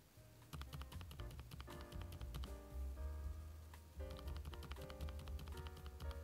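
Typing on a Varmilo Minilo 75% gasket-mount mechanical keyboard with Prestige Silence switches: a quick, steady run of soft keystrokes with a quiet clack.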